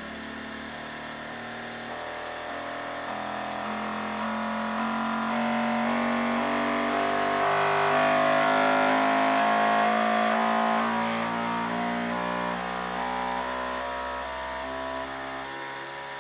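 Bambu Lab X1 Carbon 3D printer running the mechanical XY sweep of its calibration: its motion system buzzes through a series of tones that step in pitch every fraction of a second. It grows louder toward the middle and eases off near the end.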